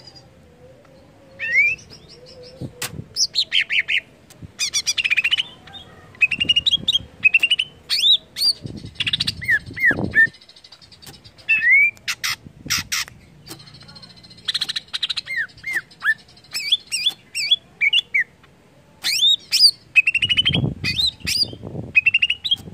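Male greater green leafbird (cucak ijo) singing: a varied, continuous run of short rising whistled notes, fast trills and chattering phrases.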